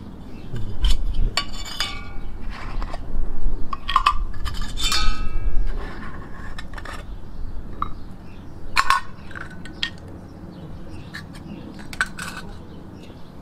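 Brass Trangia-copy spirit burners, their lids and steel pot stands handled on a stone slab: a series of metallic clinks and scrapes, some with a brief ringing tone. The clatter is busiest in the first half, with a few single sharp clicks later.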